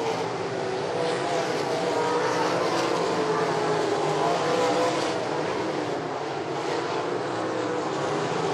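Several race car engines running together around a track, a blend of engine notes whose pitches waver slightly without a break.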